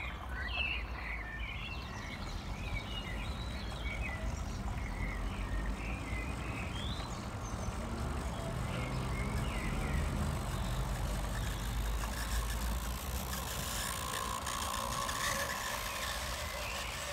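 Model British Rail Class 50 locomotive 50035 running on an outdoor garden railway with a steady low rumble. The rattle of its wheels on the track grows louder near the end as the train passes close. Birds chirp over it in the first half.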